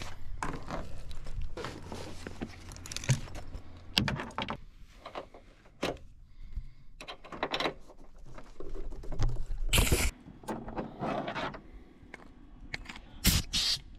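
Irregular clunks, knocks and rustling of things being handled and set down, with loud clunks about ten seconds in and again near the end.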